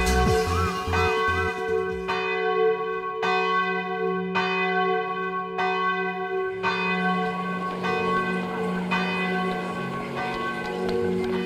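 Bell tones struck about once a second over a held low drone in the runway soundtrack; the thumping dance beat stops just at the start and the strikes grow softer in the second half.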